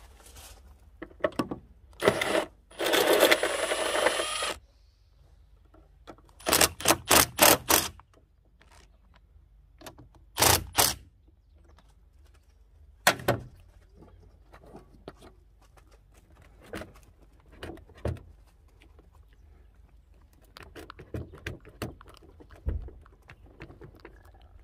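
Handling noises from hand work around a car battery in an engine bay: scattered knocks and clicks, a scraping rustle lasting about two seconds about three seconds in, a quick run of four knocks about seven seconds in, and a pair about ten seconds in.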